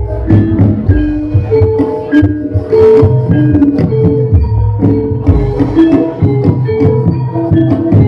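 Javanese jaranan (jathilan) music from a gamelan-style ensemble: struck metallophones ringing short pitched notes over driving drum beats, with frequent sharp clashing strokes.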